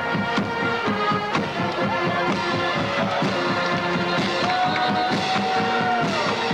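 Marching band playing: long held notes over a quick, steady drumbeat of about four strokes a second.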